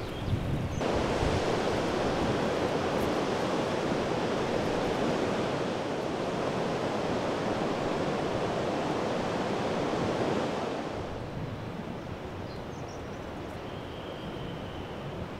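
River water rushing over a low weir: a steady, even rush that cuts in suddenly about a second in and eases to a softer flow after about eleven seconds.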